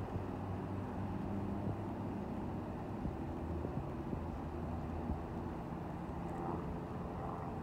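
Motorcycle running steadily while being ridden, a continuous low hum with some wind rumble.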